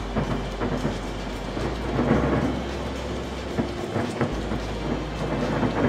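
Fireworks going off: a dense run of crackles and pops, with a few louder bangs.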